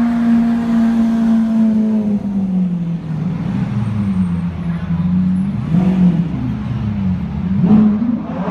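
Lamborghini Aventador Roadster's V12 pulling away at low revs, a steady engine drone that eases down in pitch over the first few seconds. It then gives short throttle blips about six seconds in and near the end.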